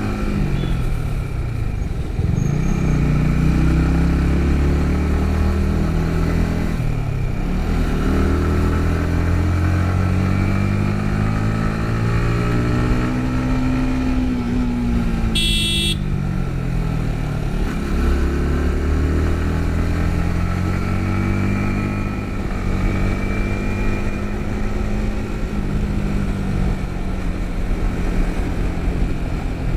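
Yamaha MT-15's 155 cc single-cylinder engine running under way, its revs rising and falling several times, with the engine note dropping about two, seven and seventeen seconds in. A brief high-pitched tone sounds about halfway through.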